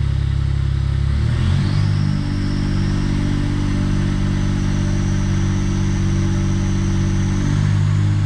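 A Smart Fortwo's small three-cylinder engine is revved up from idle about a second in and held at a steady raised speed of roughly 1,700 to 1,900 rpm with the car standing still. A high whine climbs with the revs and holds level with them.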